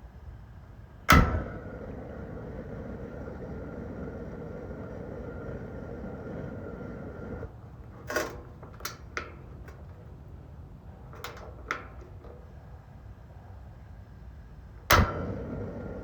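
A shop heater being started: a loud bang, then a steady hum with a whine that runs about six seconds and cuts off suddenly, followed by a few sharp clicks and a second loud bang near the end. It is not catching yet.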